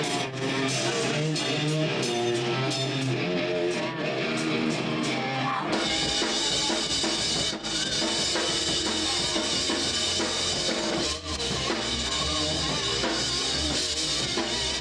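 Rock music with guitar and a drum kit; about six seconds in, a heavy bass end comes in and the sound gets fuller.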